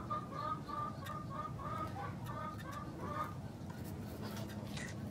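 Backyard chicken clucking: a run of short, even clucks, about three a second, that stops a little over three seconds in.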